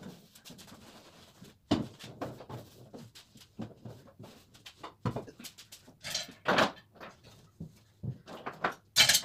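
Irregular knocks and clunks of objects being picked up and set down on a table during cleaning, with a few short rustling swishes of wiping.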